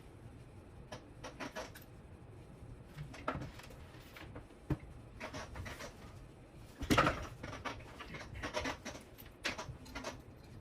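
Irregular small clicks, taps and brief rustles of parts, wires and tools being handled, the loudest about seven seconds in.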